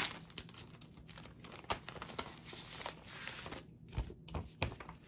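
Clear plastic comic-book sleeve crinkling and paper rustling as an old comic book is handled, in scattered small crackles, with a couple of soft knocks about four seconds in.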